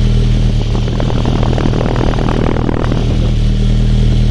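2007 Honda Civic FD's engine idling roughly with a heavy misfire, a throbbing 'helicopter' beat that shakes the car. About a second in, a burst of rapid, irregular clattering rises over it for a couple of seconds, then fades.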